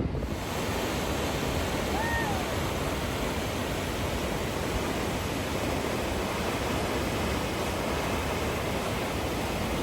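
Steady, even rushing of a waterfall close by, Eska Falls, with no let-up.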